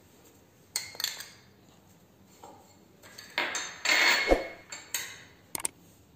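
A utensil clinking and knocking against a mixing bowl as parboiled potato wedges are seasoned: a few separate sharp clinks, then a longer scraping stretch about three to five seconds in.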